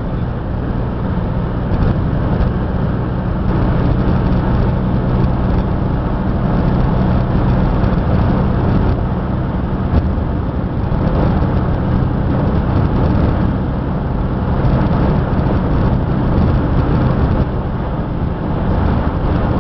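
Motor vehicle driving at a steady pace: a constant low engine drone under an even road and wind noise.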